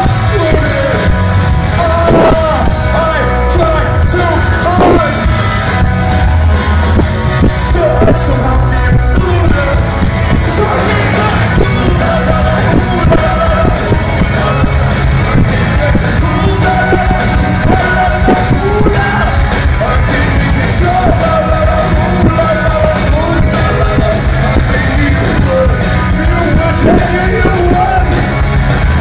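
Loud music with a singing voice over a steady bass line.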